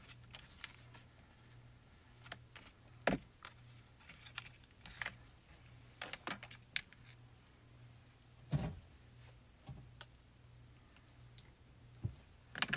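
Scattered light clicks and taps as small craft pieces (paper, clear acrylic and stamping tools) are handled and set down on a stamping platform, over a faint steady low hum.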